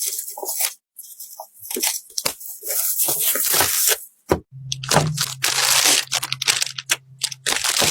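Irregular crunching and crackling handling noises, like plastic packaging being handled, with a steady low hum starting about halfway through.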